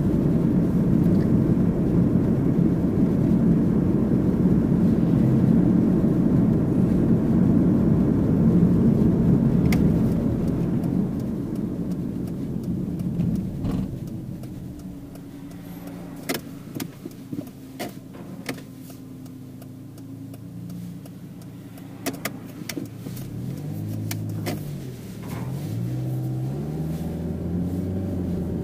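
Mitsubishi Pajero Mini kei SUV being driven: steady engine and tyre noise that eases off about halfway as the car slows, with a few light clicks in the quieter stretch. Near the end the engine pitch rises and falls a few times as the car picks up speed again.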